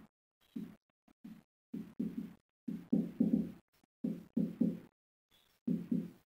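Marker pen writing on a whiteboard: a rapid series of short, low rubbing squeaks, one per pen stroke, as a word is written out letter by letter.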